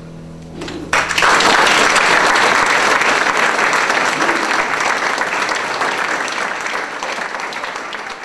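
The last piano chord dying away, then an audience breaks into applause about a second in, holding steady and slowly easing off.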